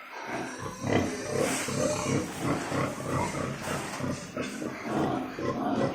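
Pigs grunting and squealing continuously, several animals at once.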